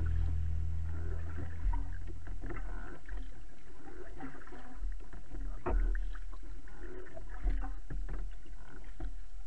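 Kayak paddle blades dipping and pulling through calm water in irregular splashy strokes, a few sharper splashes among them, with water swishing along the hull and a steady low rumble underneath.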